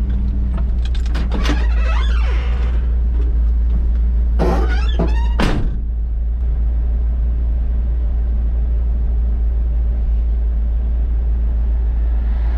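Grain truck's engine idling steadily, heard from inside the cab while it sits on the scale. In the first six seconds it is twice joined by brief sounds with sliding pitch.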